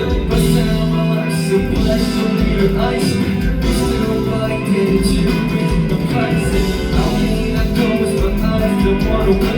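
A pop song performed live at a concert, with singing over loud, continuous music.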